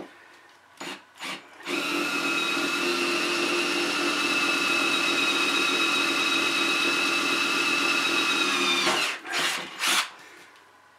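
Cordless drill boring a mounting hole through aluminum flat bar: two short blips of the motor, then a steady run with a whine for about seven seconds, then two more short blips.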